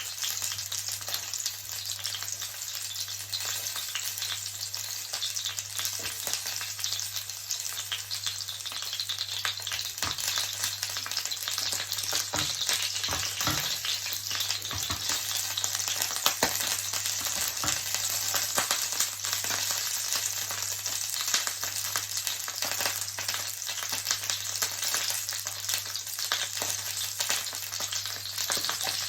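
Salmon frying in oil in a frying pan: a steady crackling sizzle with scattered sharp pops, over a steady low hum.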